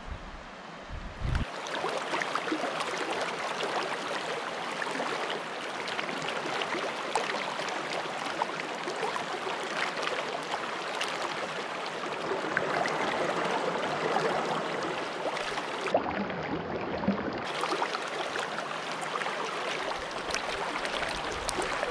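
Creek water running steadily over rocks. About three-quarters of the way through it turns duller for a second or so.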